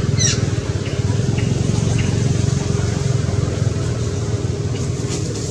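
A steady low motor hum, with a faint steady tone above it, and a few faint short high chirps.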